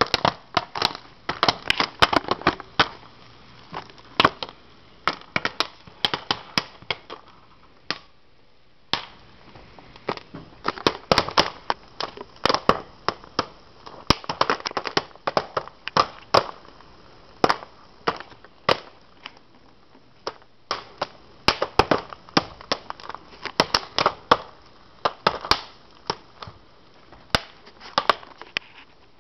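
Popcorn kernels popping inside a Jiffy Pop foil pan on a stove burner: rapid, irregular sharp pops, several a second, with a brief lull about eight seconds in.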